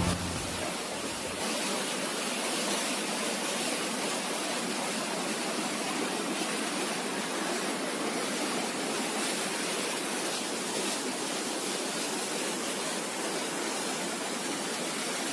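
Mountain river rushing over rapids: a steady, even rush of white water.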